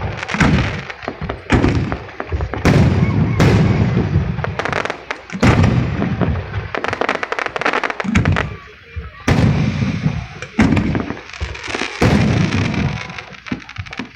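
Aerial fireworks bursting close by: a run of loud booms, about a dozen, with stretches of dense crackling between them.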